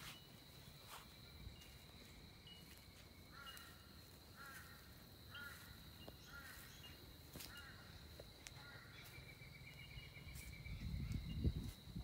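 Birds calling repeatedly, short curved calls about once a second at times, over a steady high tone. Near the end a low rumble rises and is the loudest sound.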